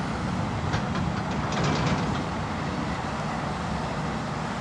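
Heavy dump truck's diesel engine running steadily as the loaded truck pulls away, with a few rattling clanks about one to two seconds in.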